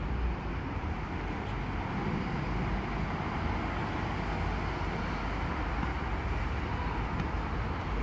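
Road traffic noise: a steady rumble and hiss.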